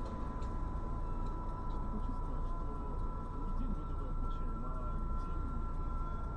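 Steady low rumble of an idling car and street traffic heard from inside the car's cabin, with a faint steady high whine and faint muffled voices.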